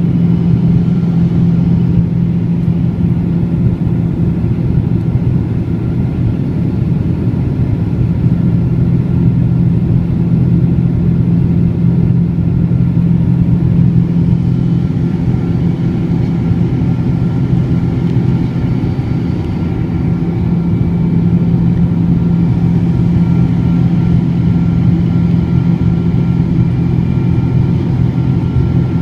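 Boeing 777-200 jet engines running at steady power: a loud, even drone with a constant low hum that neither rises nor falls.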